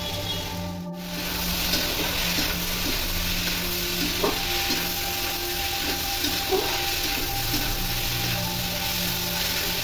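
Chickpeas with onion and tomato sizzling as they fry in a kadai, stirred with a metal spatula, with a few sharp clicks of the spatula against the pan. The sound dips briefly about a second in.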